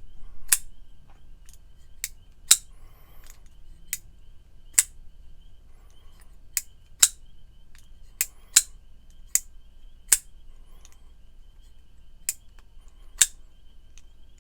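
QSP Penguin titanium frame lock pocket knife being opened and closed repeatedly on its bearing pivot, with about a dozen sharp metallic clicks of the blade snapping into place, several in quick pairs. It is freshly reassembled, and the action is smooth enough that the blade drops shut on its own.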